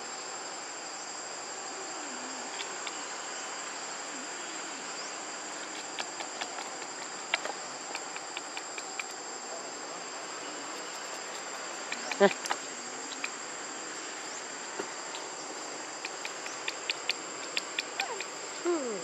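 Steady high-pitched insect drone with a second, lower whine beneath it, broken by scattered sharp clicks. A short call that falls in pitch comes about twelve seconds in and is the loudest sound, and another falling call comes near the end.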